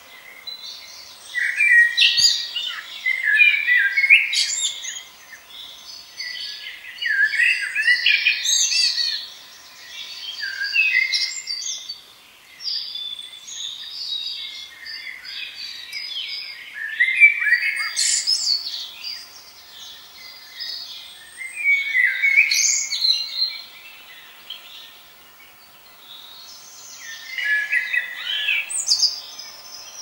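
Songbirds singing in woodland: loud, varied whistled song phrases come every few seconds, with softer chirps and calls in between.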